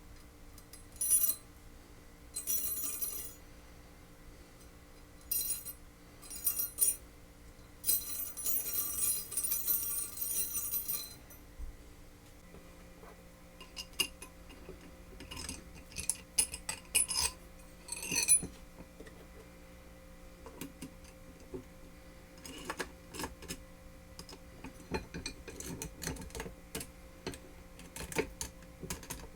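Metal vise parts and hand tools being handled: intermittent clinks, clicks and rattles, with a denser run of bright rattling about eight to eleven seconds in and lighter scattered clicks later.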